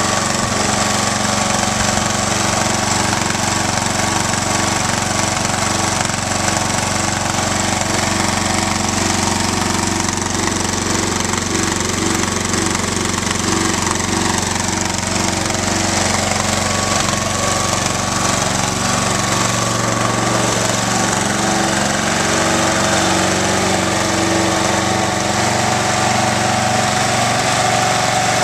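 36-inch Howard Price walk-behind mower's engine running steadily at a constant speed.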